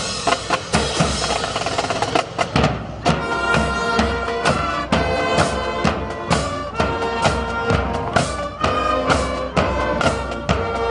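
Loud music with a steady drum beat and sustained melody notes, the beat settling in about three seconds in.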